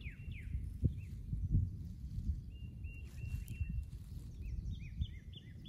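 Songbirds singing: a quick series of falling whistled notes, then a few held whistles, then more slurred notes near the end, over low rustling with a few soft bumps.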